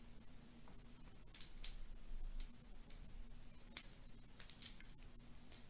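LEGO plastic bricks clicking as they are pressed onto the model and picked from the loose pieces: several sharp clicks, the loudest about a second and a half in.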